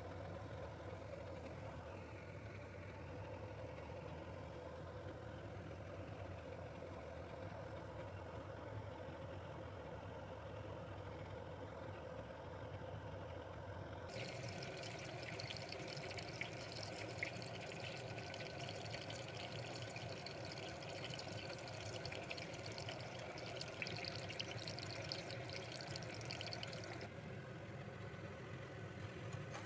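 Steady low kitchen hum. About halfway through, a crackling sizzle of food cooking in a pan joins it, and it stops a few seconds before the end.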